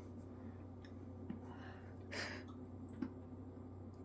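Quiet room tone with a steady low hum, a few faint short clicks and one soft breathy rustle about two seconds in.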